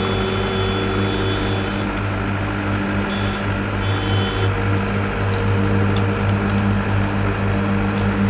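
Diesel engine of a slipform concrete paving machine running steadily under load as it is fed concrete, a deep even hum. A faint high whine comes and goes twice in the first half.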